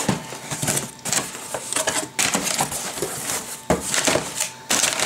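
Crumpled packing paper crinkling and rustling inside a cardboard shipping box as it is handled, with the box's flaps scraping: a busy run of irregular crackles and scrapes.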